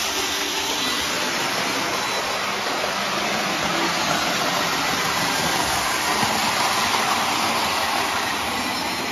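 Lionel model trains running on their track: a steady whirring rumble of electric motors and wheels, swelling slightly in the middle.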